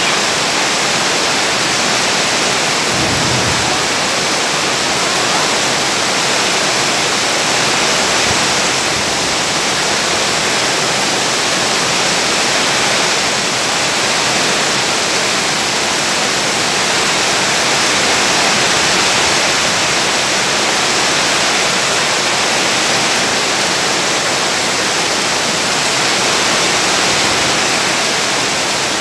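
Heavy rain falling steadily, an even, dense hiss with no let-up.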